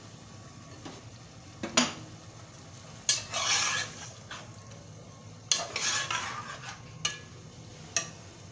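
A plastic spatula stirring and scraping chicken pieces in masala in an aluminium cooking pot, with about five sharp knocks against the pot. There are two longer scraping stirs, one about three seconds in and one in the middle.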